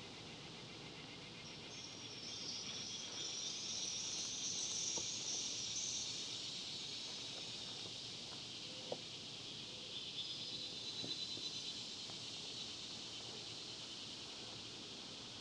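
Insects buzzing in a high, steady chorus that swells about two seconds in, eases after six seconds and rises again around ten seconds. A few faint clicks come in between, the sharpest about nine seconds in.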